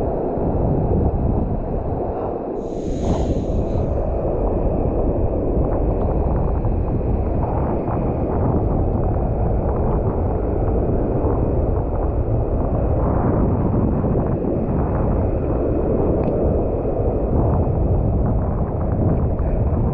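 Steady wind rumble on the microphone over surf breaking on the beach, with a brief hiss about three seconds in.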